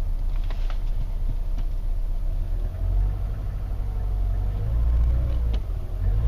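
1997 Mercedes-Benz C230 (W202) four-cylinder engine idling on a freshly replaced mass airflow sensor, cold-started after a week of sitting in freezing weather. The idle is not quite even, swelling briefly about three seconds in and again about five seconds in.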